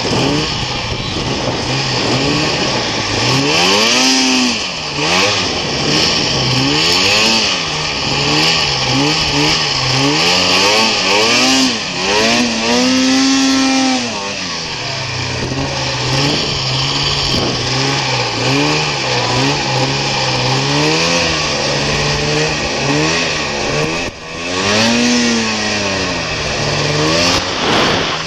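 Snowmobile engine revving up and down again and again as the throttle is worked, over a steady rushing hiss. A longer, higher rev comes about twelve seconds in.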